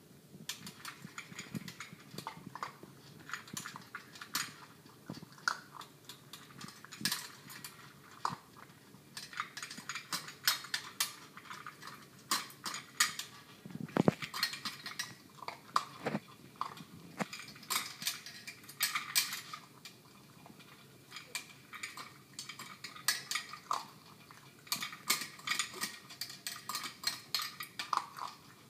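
Cairn terrier puppy eating fast from a metal bowl, the food and her muzzle clinking and rattling against it in quick, irregular clicks.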